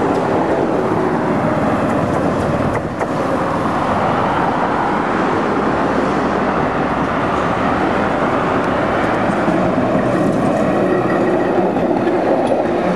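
A tram running on street track, its wheels and running gear giving a steady rumble as it approaches and passes close by near the end. Road traffic is going by alongside.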